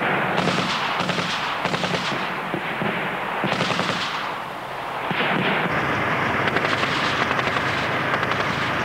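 Heavy automatic gunfire: long, rapid bursts of shots that run almost without a break, with a short lull near the middle.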